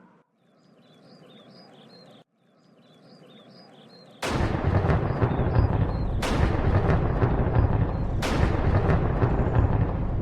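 A faint soft sound with light chirps, then about four seconds in a loud, harsh sound effect of explosion-like blasts, a new blast starting about every two seconds.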